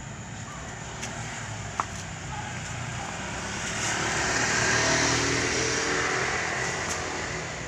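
Motor scooter passing by on the road, its engine growing louder to a peak about five seconds in and then fading away.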